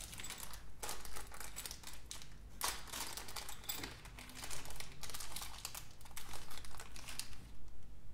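A small clear plastic parts bag crinkling in several spells as it is handled and opened, with a few sharp clicks in the second half.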